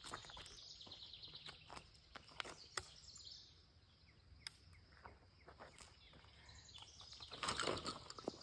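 Quiet outdoor ambience with faint bird chirps and scattered small clicks and ticks. A short rush of noise comes near the end.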